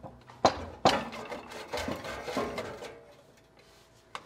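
Metal clunks and scraping from an E4OD automatic transmission on a transmission jack being wiggled and pulled back off the engine's dowel pins. There are two sharp knocks about half a second and a second in, then clattering that dies away about three seconds in, and a single click near the end.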